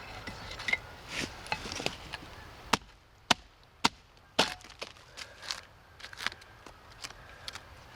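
Hand-hewing a pine log: an edged hewing tool chopping into the wood in a string of sharp, unevenly spaced strikes, each taking off a thin cut, with the sharpest blows near the middle.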